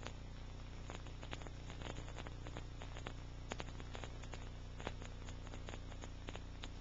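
Steady low electrical hum with scattered, irregular clicks and crackles: the background noise of a silent film's transfer, with no recorded sound of its own.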